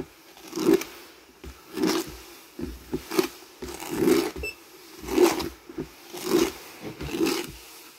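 Homemade sand tumbler turning: a plastic tub spun by a small DC motor, with the sand inside sliding and swishing in a regular pulse about once a second.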